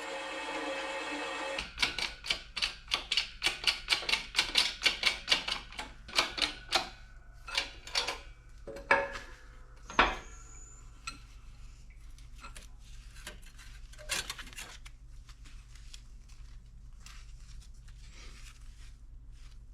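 Hammer blows on a perforated aluminum sheet as it is bent into shape: a quick run of sharp metallic knocks, about three or four a second, then slower, scattered blows. One loud strike near the middle rings briefly, and a few faint taps follow.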